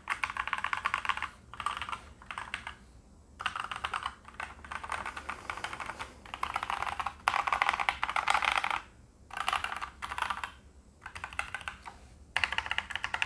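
Typing on a Hexgears GK715 mechanical keyboard with unlubricated Yusha red linear switches, stock stabilisers and ABS keycaps. The keystrokes come in quick runs of rapid clacks, each a second or so long, with short pauses between them.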